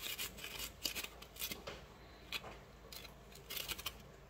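Small red radish being grated on a stainless-steel grater: short rasping strokes, quick and close together for the first couple of seconds, then a few scattered strokes.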